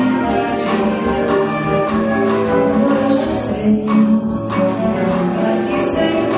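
Small live band playing a bossa nova tune on flute, cello, piano, guitar and drum kit, with jingling percussion and cymbals over sustained melody notes.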